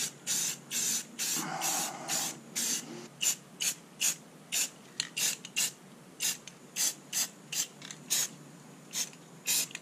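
Aerosol spray paint can sprayed in many short bursts of hiss, about two or three a second, laying down a camouflage pattern.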